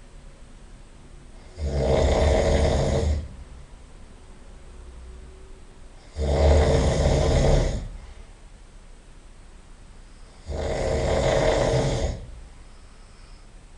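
A person snoring loudly: three long snores, each about a second and a half, coming every four to five seconds, with much quieter stretches between.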